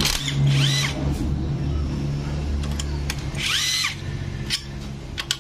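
Cordless impact wrench running on the CVT cover bolts of a Honda Scoopy, its motor whine rising and falling in two bursts, near the start and about three and a half seconds in, with a few sharp metal clicks after.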